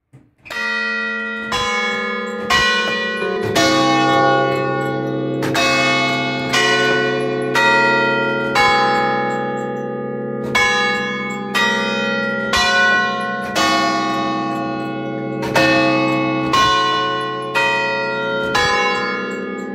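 Swinging bronze church bells starting to ring from silence, struck by their clappers about once a second, each stroke's ringing overlapping the next. A deeper tone joins about three and a half seconds in.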